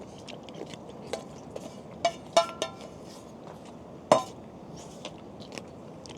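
Metal utensils clinking against pots and dishes during cooking: a scattering of light clicks, with a few louder ringing clinks about two seconds in and again about four seconds in, over a steady background hiss.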